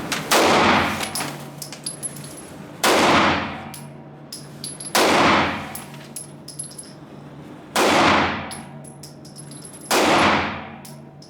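Five pistol shots from a Staccato semi-automatic handgun, fired slowly, about two to three seconds apart, each followed by a long ringing decay.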